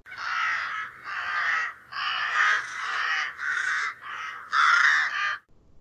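Crow cawing: a series of about seven caws in quick succession, then it stops shortly before the end.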